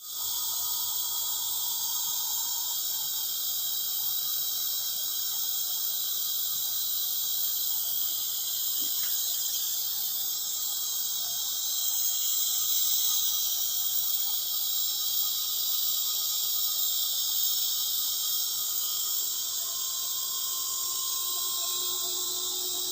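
Steady, high-pitched chorus of crickets and other insects, unbroken throughout.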